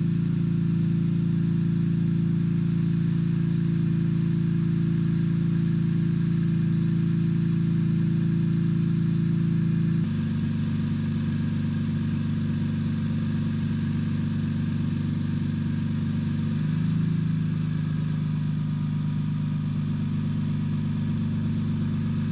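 BMW E46 M3's S54 straight-six engine idling steadily. About ten seconds in the sound changes abruptly, and a few seconds later the idle dips a little lower in pitch and settles.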